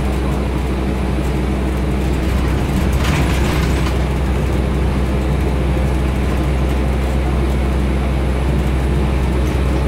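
Scania N230UD bus engine and running noise heard from inside the passenger saloon of an Alexander Dennis Enviro 400 double-decker on the move: a steady low drone with road and body noise over it. It gets slightly louder about three seconds in, with a brief hiss at the same point.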